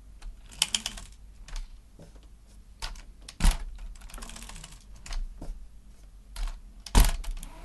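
Scattered plastic clicks and knocks as a LEGO Technic pull-back car model is handled and moved about on a wooden tabletop, with two louder knocks about three and a half seconds and seven seconds in.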